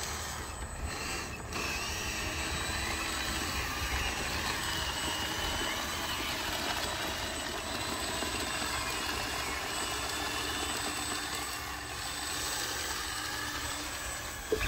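Small electric motors and gearboxes of radio-controlled construction models whirring steadily, with a faint wavering whine over the top, as the toy machines work a heap of dirt.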